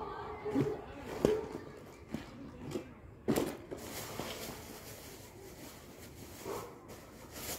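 Scattered light knocks and rustles, with a sharp click about a second in and a louder rustle about three seconds in, followed by a faint steady hiss.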